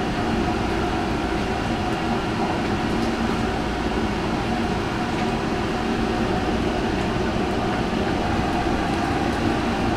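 Steady roar with a faint hum from a big cast-iron cauldron of bone broth boiling hard over its burner, with the kitchen's burners and vent fans running.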